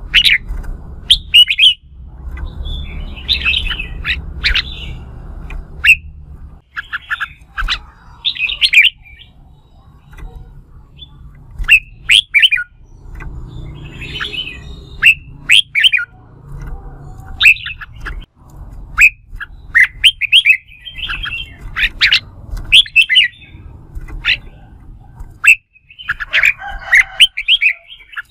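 Red-whiskered bulbul singing its competitive fighting song: loud phrases of short, sharp whistled notes and scratchy chatter, repeated every second or two with brief pauses, over a low background hum that comes and goes.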